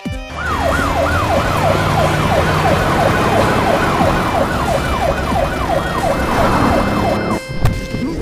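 Police siren sounding in quick, repeated falling sweeps, about two and a half a second, over the running engine and road noise of the vehicle. It cuts off near the end, followed by a short thump.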